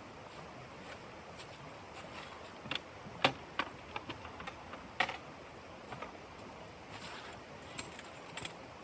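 Irregular light clicks and taps over a steady hiss, with two sharper knocks about three and five seconds in.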